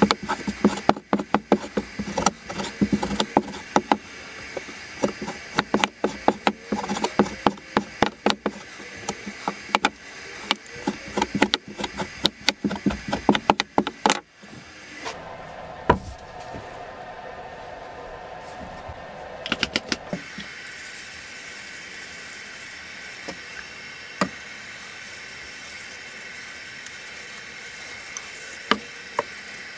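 A freshly sharpened vintage axe chopping a cotton rag on a chipboard board: quick, sharp knocks of the blade biting through the cloth into the board, several a second. About halfway through they stop, giving way to a steady hiss with a few scattered clicks.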